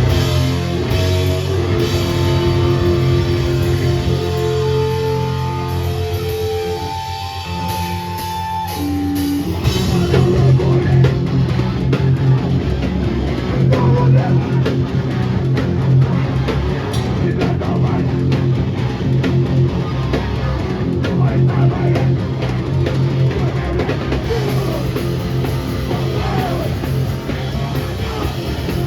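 Loud live hardcore/metalcore band playing. A guitar holds sustained notes over the drums for the first nine seconds or so, then the full band comes in heavy with distorted guitars and pounding drums.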